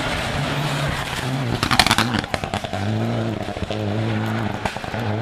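Rally car engine at high revs passing close, with a burst of sharp crackles and pops about two seconds in, then a steady engine note with brief breaks between gears as it accelerates away.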